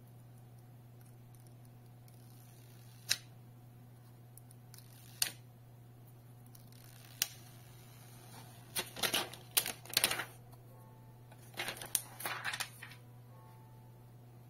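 Thin plastic protective film being picked at and peeled off a tablet's glass screen: three sharp single clicks about two seconds apart, then two bursts of crackling plastic.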